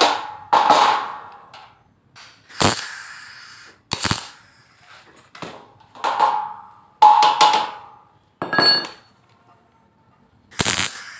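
Wire-feed (MIG) welder laying short tack welds on the corners of thin steel door trim: a string of brief crackling bursts with gaps between, and a couple of sharp metal knocks among them.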